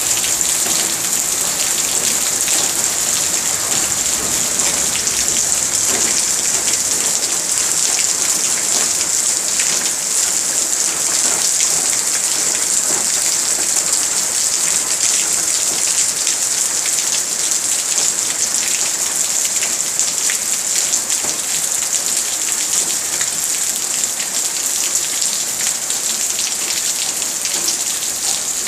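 Steady, fairly loud rain falling, with many separate drop hits heard through the even hiss.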